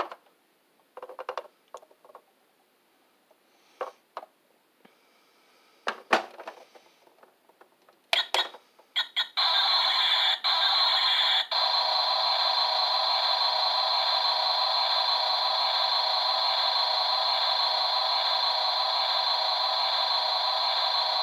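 Wolvol toy recycling truck's built-in electronic sound effect playing through its tiny speaker. A few clicks and short bursts come first as its buttons are pressed, then from about nine seconds in a loud, steady noise runs on, broken twice by brief dropouts.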